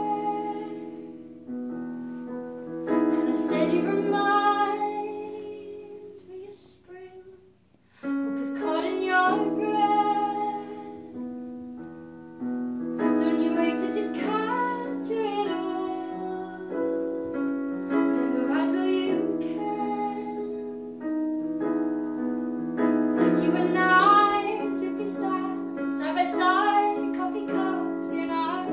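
A woman singing live to piano chords played on an electric keyboard. The music breaks off for about a second a third of the way through, then the voice and keyboard start again.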